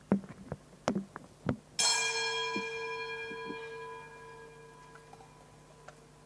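Metal altar vessels handled with a few light clicks and knocks, then one sharp metallic strike a couple of seconds in. It rings on like a small bell, several clear tones fading over about four seconds.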